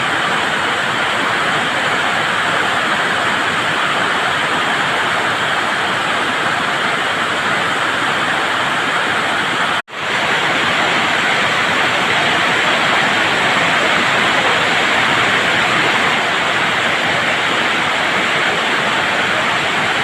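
Heavy summer-storm rain pouring down as a loud, steady hiss, loud enough to drown out conversation. It cuts out for an instant about halfway through, then carries on just as before.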